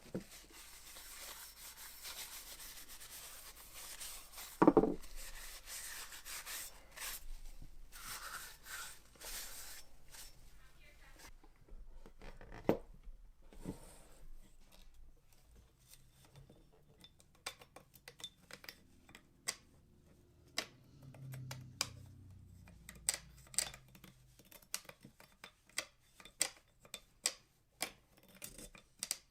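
Hand-tool rubbing and scraping, with one sharp knock about five seconds in; in the second half it gives way to a run of irregular sharp clicks and taps.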